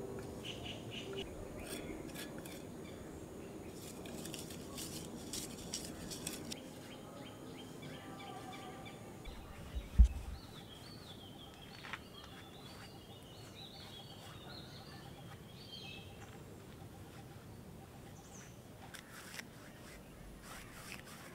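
Wild birds chirping, with scattered faint clicks and a single dull low thump about ten seconds in.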